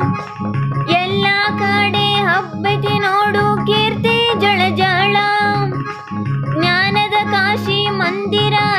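Music: a Kannada song, a voice singing a melody over guitar accompaniment with a steady bass line.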